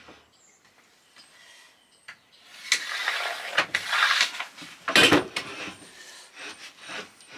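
Long spirit level being slid and scraped across a plywood van floor, then set down on the boards with a loud knock about five seconds in, followed by a few lighter taps and pencil scratches as lines are marked along it.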